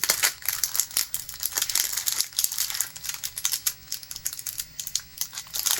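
Plastic packaging crinkling and rustling in irregular crackles as it is handled and pulled open by hand.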